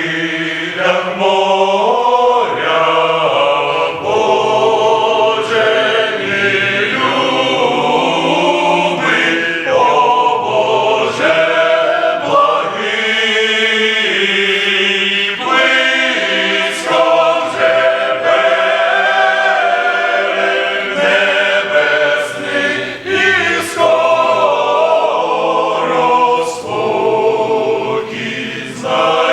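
Men's choir singing a Ukrainian hymn, with long held notes that change every second or two.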